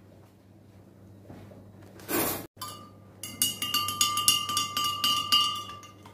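A long metal spoon stirring a drink in a glass pitcher, clinking rapidly against the glass with a bright ringing tone from about three seconds in. A short swish comes just before the clinking starts.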